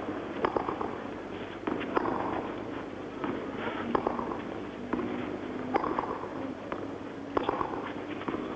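Tennis rally on a clay court: the racket hits the ball about every one to two seconds, each strike a sharp pop, some with a short echo. A steady background noise runs underneath.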